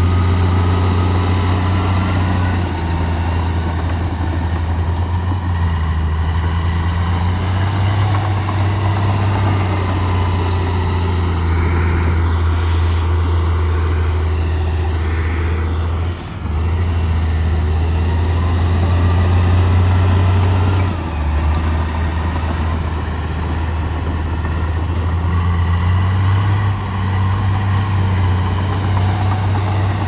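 Heavy diesel vehicle engine running with a steady low drone. The sound dips briefly about halfway through.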